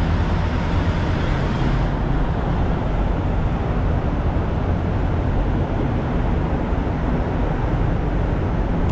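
Steady low rumble of idling diesel semi trucks around a truck-stop lot.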